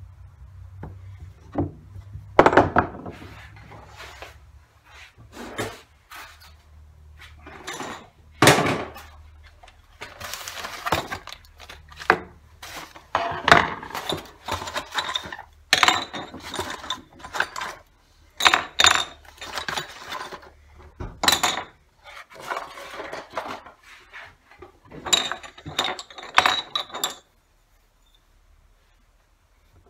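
A small hammer tapping a wood chisel into a wooden board, in irregular knocks and metallic clinks, mixed with the clatter of tools being set down and moved about.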